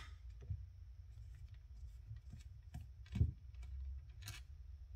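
A handful of scattered light clicks and taps from small carburetor screws being handled and set down in a metal muffin tray, the loudest a little after three seconds in.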